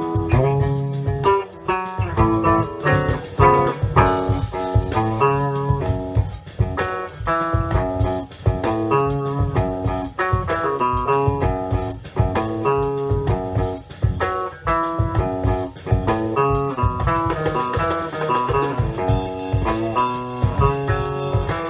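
SG-style electric guitar improvising lead lines of quick single notes and short chord stabs over a recorded rock drum track, the drums keeping a steady groove.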